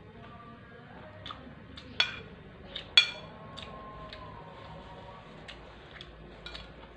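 Metal spoon and fork clinking and scraping against a ceramic plate while eating, with two sharp clinks about a second apart near the middle and lighter taps around them.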